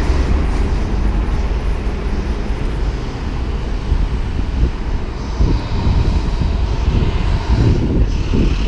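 Wind rushing over the microphone of a bike-mounted action camera while riding, a steady heavy low rumble mixed with city traffic noise.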